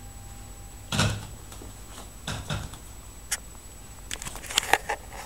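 Petit Brabançon puppies shifting about in a padded fabric dog bag: a dull bump about a second in, two softer bumps a little past two seconds, then a quick run of sharp clicks and scrapes near the end.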